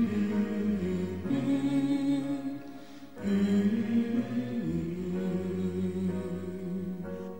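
Background music: slow vocal music with long held sung notes, with a brief lull about three seconds in.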